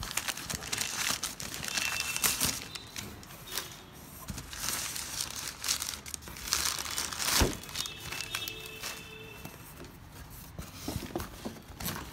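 Crinkling and rustling of a plastic bag and brown packing paper as a boxed action figure is pulled out of a cardboard shipping carton, with one sharp knock of the package against the box about seven and a half seconds in.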